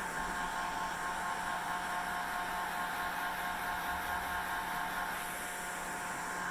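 Hair dryer running steadily: a constant whirring rush of air with a steady whine around its motor tone, unchanging throughout.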